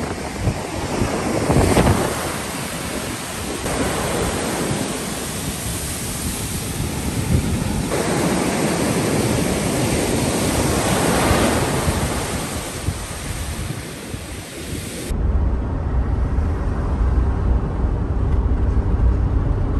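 Ocean surf breaking and washing up the beach in repeated swells, with wind buffeting the microphone. About fifteen seconds in it cuts abruptly to the low, steady rumble of a car cabin on the move.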